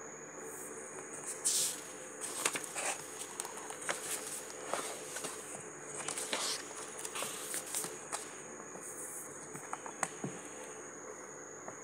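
Irregular rustling and light taps of someone working at a study desk, over a steady high-pitched whine. The loudest rustle comes about a second and a half in.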